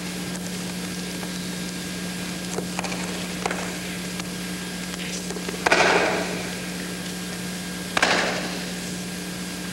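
Aikido breakfalls: two loud slaps of a body landing on a gym wrestling mat, about two seconds apart in the second half, each echoing around a large hall, with a few fainter knocks of feet and bodies earlier and a steady electrical hum underneath.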